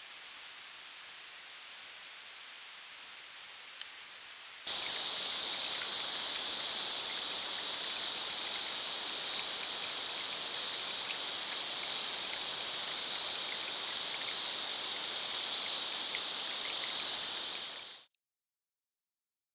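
Steady outdoor hiss picked up by a trail camera's microphone at a creek, with a single tick about four seconds in. Just under five seconds in it changes suddenly to a louder steady hiss with a constant high-pitched drone over it, which cuts off abruptly near the end.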